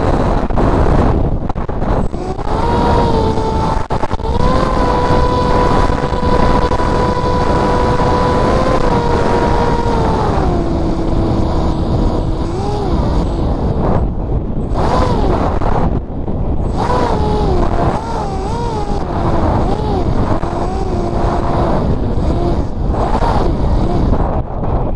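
Brushless electric motor and propeller of a Spec Wing flying wing, heard from the onboard camera in flight: a pitched whine that holds steady, drops in pitch about ten seconds in, then wavers up and down with the throttle. Heavy wind rush over the airframe runs underneath it, and the sound falls away right at the end.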